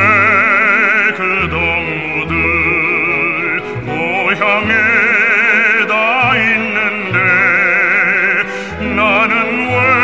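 Classical operatic singing with strong vibrato over orchestral accompaniment, in phrases of a second or two with a sustained bass beneath.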